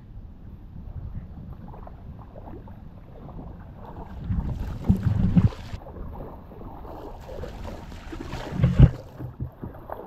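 Footsteps wading and sloshing through shallow river water, with wind buffeting the microphone as a steady low rumble; louder surges of splashing come about four to five seconds in and again near the end.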